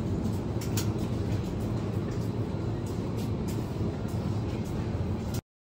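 Supermarket background noise: a steady low hum, as from the refrigerated display cases, with faint scattered clicks of handling. It cuts off suddenly near the end.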